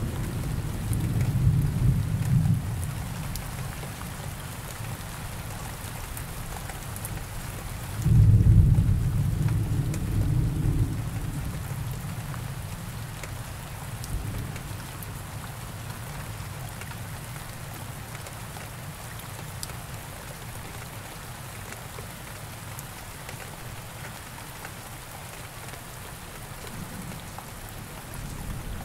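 Steady rain with thunder rumbling: a rumble dying away over the first couple of seconds, a second one breaking in suddenly about eight seconds in and rolling on for about three seconds, and another building near the end.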